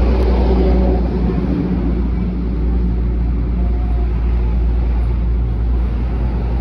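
Engine running steadily nearby, a loud, constant low rumble.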